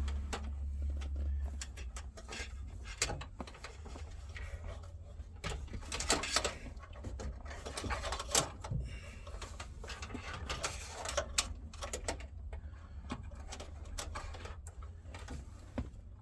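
Irregular rustles, scrapes and small clicks of a wire being fed and routed by hand behind a car's dashboard, over a steady low hum.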